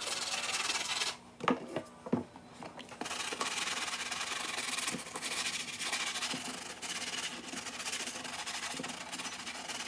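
Steady, scratchy rubbing on an Air Jordan 4 sneaker, stopping for about two seconds near the start with a few light knocks, then resuming.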